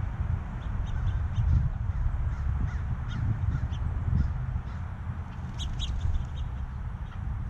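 Wild birds calling around a backyard feeder: many short, high chips and calls, the loudest pair about two-thirds of the way through, over a steady low rumble.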